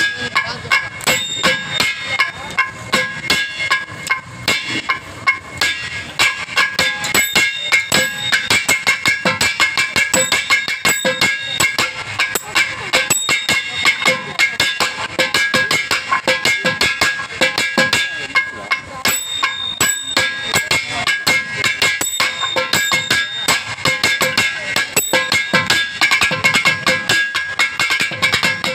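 Carnatic percussion solo (thani avartanam): fast, dense hand-drum strokes over a steady drone.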